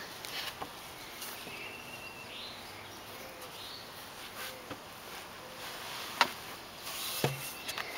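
Quiet outdoor background with faint bird chirps, then two sharp knocks near the end as a toddler crawls onto the wooden deck boards of a play set.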